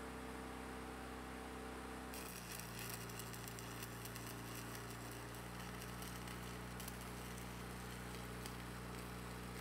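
A steady electrical hum, then about two seconds in a MIG welding arc strikes and keeps crackling and spitting with irregular sharp pops, while the hum shifts its pitch under the welding load.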